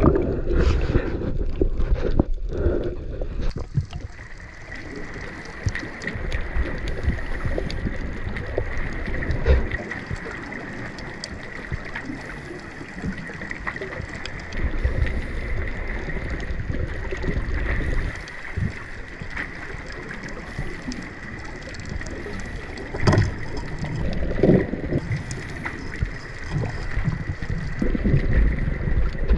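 Underwater sound picked up by a diving action camera: muffled water movement and bubbling, with scattered small clicks and a faint steady high tone. A sharper knock stands out about three quarters of the way through.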